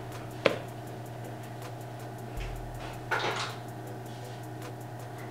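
A football shirt on its hanger being handled and lifted off a wall hook: a single sharp knock about half a second in, then a brief rustle and clack about three seconds in. A steady electrical hum runs underneath.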